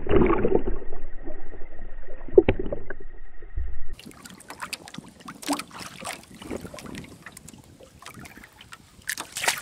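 A hooked fish thrashing at the surface, a loud, muffled splashing with a second sharp splash about two and a half seconds in. After an abrupt change near four seconds in, softer splashes and water lapping as the fish is held alongside a small boat, with a louder splash near the end.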